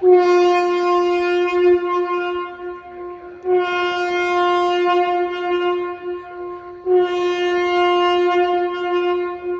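Steady, horn-like warning alarm tone sounding in three long blasts of about three and a half seconds, each separated by a brief break.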